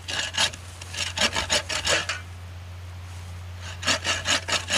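Braided steel wire survival saw drawn quickly back and forth through a thin sapling trunk, a rasping stroke about five times a second. There are two runs of strokes, with a pause of about a second and a half between them.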